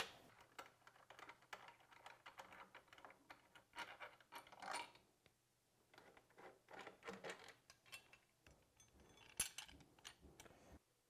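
Faint, scattered metal clicks and clinks of bolts, a hand wrench and a steel bracket being handled at a motorcycle's foot peg mount, with a sharper clink about nine and a half seconds in.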